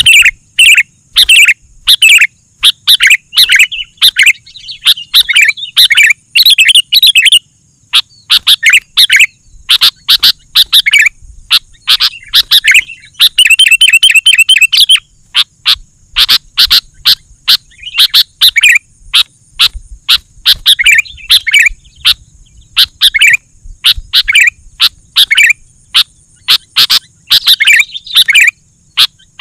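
Sooty-headed bulbul singing loudly and persistently in short, bubbly whistled phrases one after another, with a fast chattering run about halfway through. A faint steady high tone sits behind the song.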